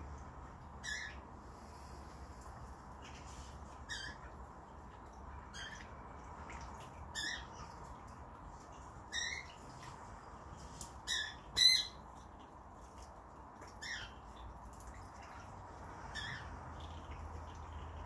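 A gull giving short, high squawking calls, about nine of them spaced a second or few apart, with a quick pair of calls near the middle the loudest.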